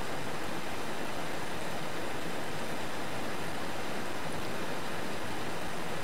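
Steady heavy rain, an even hiss with no single drops standing out.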